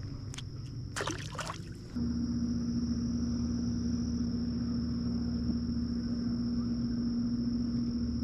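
A small boat motor running with a steady hum and a thin high whine, stepping up in speed and loudness about two seconds in and then holding steady. A few light clicks and knocks come in the first second and a half.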